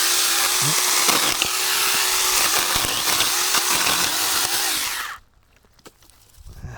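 Saker handheld electric mini-chainsaw running and cutting wood, its motor whine dipping in pitch several times under load. It cuts off suddenly about five seconds in.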